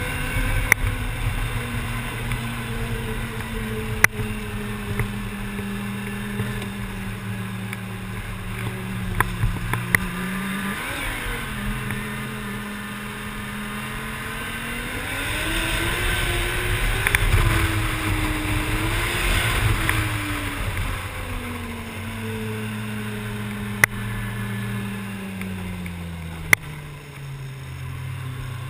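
Arctic Cat snowmobile engine running under way, heard from the rider's seat with rushing wind and track noise. The revs climb and fall back around the middle, then ease off near the end, and a few sharp clicks stand out.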